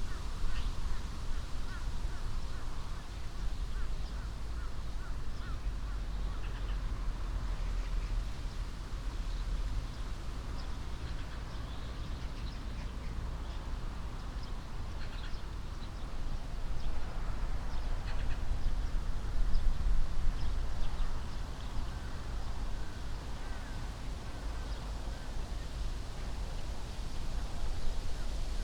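Wind in an old alder tree: a steady rushing hiss with a low rumble of wind on the microphones, swelling louder about two-thirds of the way through. Birds call over it now and then.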